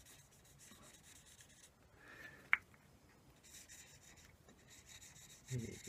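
Felt-tip permanent marker drawn in faint scratchy strokes over bare yew wood, marking out legs to be cut. A single sharp click about halfway through.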